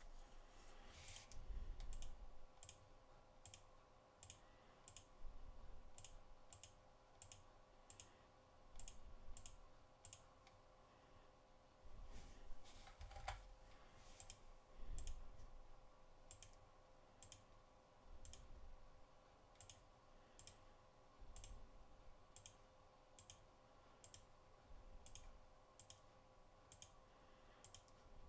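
Quiet computer mouse clicks, single and in pairs at irregular intervals of about one to two a second, with a few dull low thumps and a faint steady hum under them.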